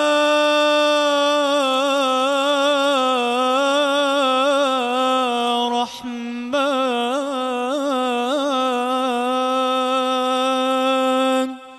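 A male munshid's solo voice singing an unaccompanied Islamic inshad: two long held phrases with wavering melismatic ornaments, with a short breath about six seconds in.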